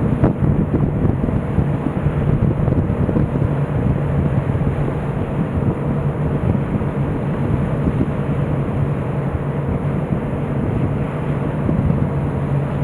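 Car ferry's engines droning in a steady low hum as the ship comes into port, with wind buffeting the microphone.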